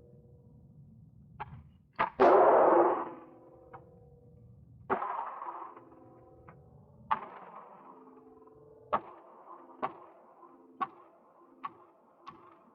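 Gunshots echoing in an indoor shooting range: about ten sharp reports at uneven intervals and varying loudness, the loudest a couple of seconds in, over a steady ventilation-like hum.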